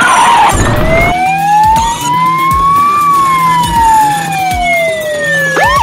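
Electronic siren of a ride-on toy police vehicle sounding one slow wail: a short noisy rush at the start, then a pitch that rises for about two and a half seconds and falls for about as long, with a quick upward yelp right at the end.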